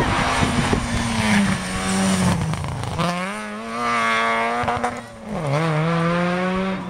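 Rally car engine running hard at high revs as the car passes on a special stage; about five seconds in the revs dip sharply and then climb again as it pulls away.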